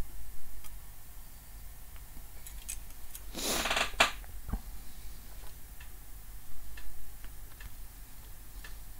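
Light scattered clicks and small taps of handling, with one short hiss about three and a half seconds in.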